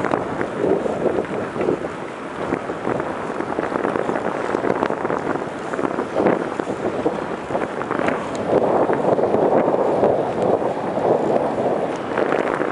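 Wind buffeting the microphone of a camera carried on a moving bicycle, with scattered small clicks and rattles from the ride. It swells louder for a few seconds about two-thirds of the way through.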